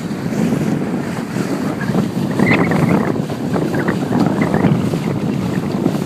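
Wind buffeting the microphone and water rushing and splashing along the hull of a rigid inflatable boat under way, with short slaps of water from about two seconds in.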